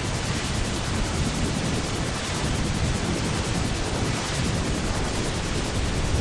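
Steady static-like noise with no clear tone: the sound of a logo animation distorted by a digital editing effect until only noise is left.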